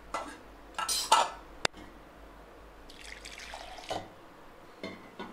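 Water being added to ground cucumber pulp in a stainless-steel mesh strainer over a steel bowl: a few short splashes and drips, with one sharp clink a little under two seconds in.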